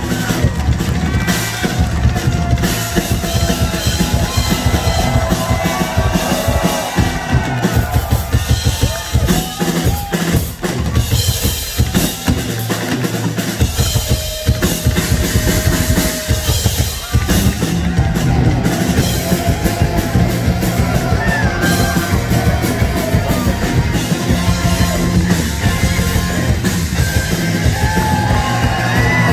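Live hard rock band playing, with a drum kit prominent. About twelve seconds in, the low end drops out for a moment before the full band comes back in.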